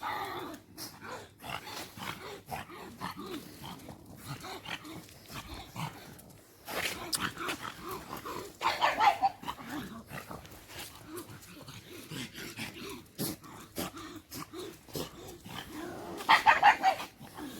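Dogs barking a few times in short calls, the clearest about halfway through and again near the end, over scattered scuffs and clicks.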